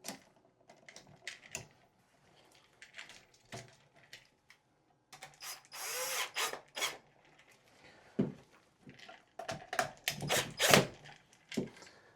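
A cordless drill-driver runs for about a second and a half, driving a screw, with a motor pitch that bends as it spins. Scattered clicks and several sharp knocks from wires and hardware being handled fall before and after.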